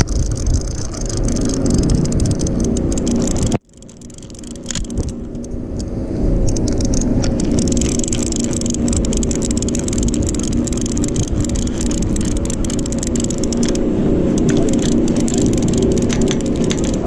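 Boat engine running steadily, with light clicking and rattling over it. The sound cuts out sharply about three and a half seconds in and builds back up over the next couple of seconds.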